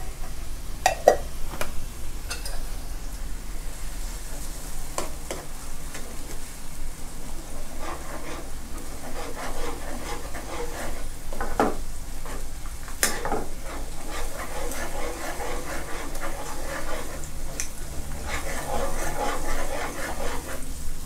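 A metal spoon stirs a thick chili-paste sauce simmering in a granite-coated non-stick wok. The spoon scrapes the pan and knocks against it now and then, the loudest knock coming near the end, over the sizzle of the sauce.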